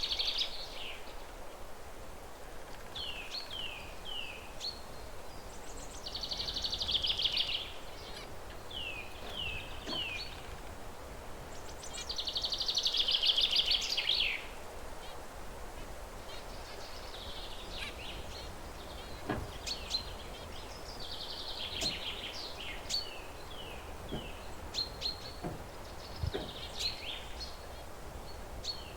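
Zebra finches calling: short downward-sliding notes in quick runs of three or four, broken by longer buzzy song phrases, the loudest about seven and thirteen seconds in.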